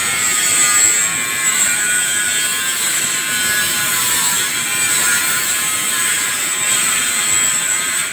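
Welding arc on a steel pipe joint, giving a steady electric buzz and hiss without crackle.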